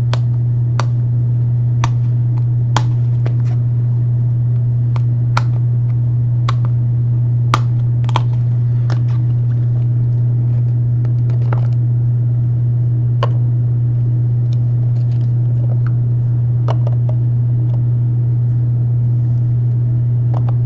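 A loud steady low hum, with scattered light clicks and taps of trading cards being handled.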